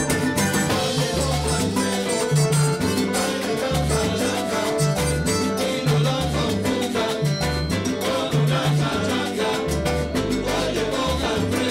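Live salsa band playing a steady groove, with upright bass notes and hand percussion prominent in the mix.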